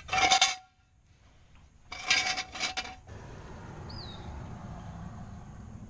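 Steel jack stand being handled under the car: two short metallic rattling clanks, one right at the start and a longer, broken one about two seconds in.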